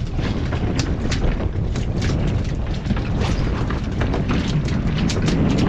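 Wind buffeting the microphone in a heavy, continuous low rumble, with a scattering of short sharp clicks and taps over it.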